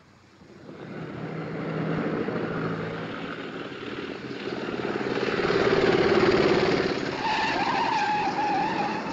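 Engines of a motorcycle and an old Morris open tourer drawing near along a street, growing louder to a peak around the middle. Near the end a high wavering squeal joins in as the car brakes to a stop.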